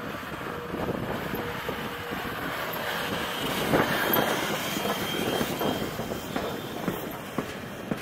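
Strasburg Rail Road No. 89, a 2-6-0 steam locomotive, rolling slowly past at close range: irregular clanks and knocks from its running gear and wheels on the rails. A thin wheel squeal comes in about three seconds in and lasts a couple of seconds.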